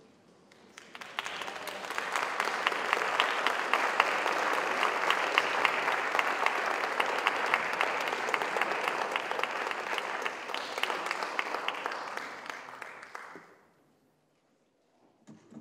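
Audience applauding steadily, swelling about a second in and dying away near the end.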